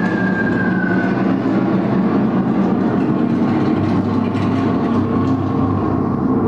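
Simulated air-raid sound effects in wartime shelter tunnels: a loud, steady rumble, with a thin falling whistle that fades out about a second in. The low rumble grows heavier past the middle.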